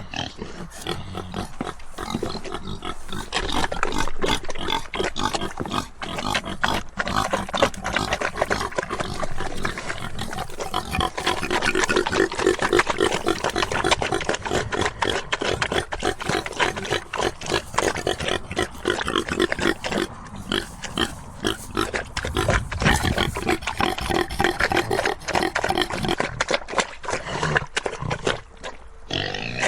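Pigs grunting and oinking continuously, in many rapid overlapping grunts.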